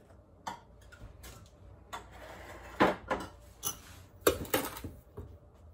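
Baked buns being tossed in granulated sugar in a stainless steel bowl: a run of irregular clicks and knocks from the bowl, loudest around the middle.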